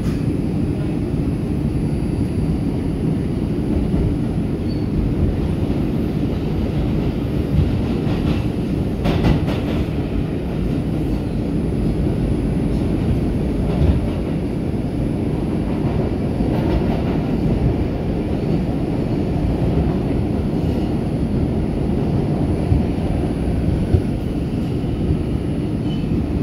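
R142 subway car running through the tunnel, heard from inside the car: a steady, loud low rumble of wheels and running gear on the rails, with a cluster of sharp clicks about eight to ten seconds in and a few single clacks.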